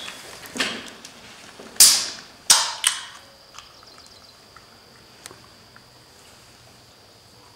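Aluminium drink can opened by its pull tab: a short hiss of escaping fizz and sharp metallic clicks, about two to three seconds in.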